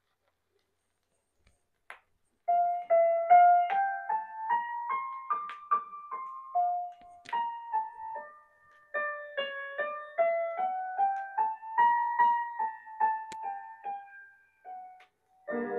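A vinyl record playing on a CoolGeek VS-01 vertical turntable through its built-in front speakers. After a short quiet lead-in with a faint click just before two seconds, a keyboard melody of single, separate notes starts about two and a half seconds in and climbs and falls in short phrases. The playback speed wavers slightly, which the reviewer takes for wow.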